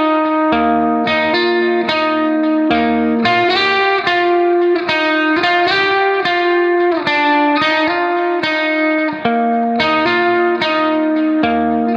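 Instrumental background music: plucked notes in a steady, repeating pattern of about two notes a second, with occasional low bass notes underneath.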